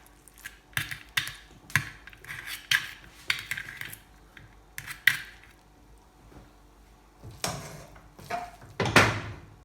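A spoon clinking and scraping against dishes as cooked rice is spooned onto a plate: a string of short clicks and scrapes, then two louder knocks near the end.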